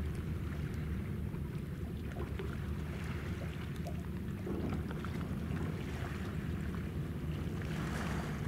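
Steady low rumble of wind on the microphone, with faint scattered ticks.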